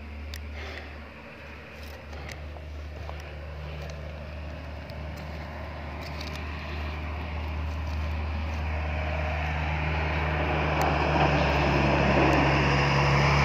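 Road traffic: a motor vehicle's engine approaching, a steady low drone that grows louder through the second half.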